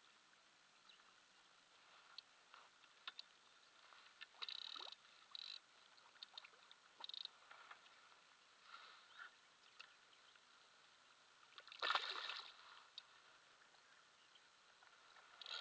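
Faint water lapping and sloshing against the hulls of a small catamaran, with scattered light clicks and a louder slosh about twelve seconds in.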